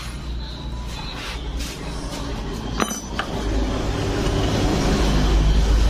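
Metal tools clinking against the scooter's CVT pulley, a couple of sharp clinks about three seconds in, over a steady low mechanical hum that grows louder in the second half.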